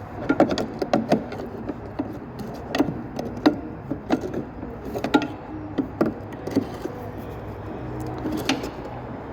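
Irregular metallic clinks and knocks of hand tools on metal as a stubborn bolt is worked at, some strikes ringing briefly, over a low steady hum.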